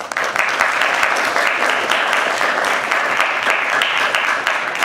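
An audience applauding, breaking out suddenly and holding steady.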